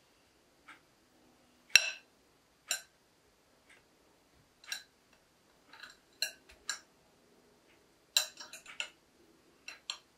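Metal cutlery (a knife and a pizza server) clinking against a glass pie dish as a pizza is cut and a slice is lifted out. About a dozen separate sharp clinks, the loudest about two seconds in, with a quick run of them around eight seconds in.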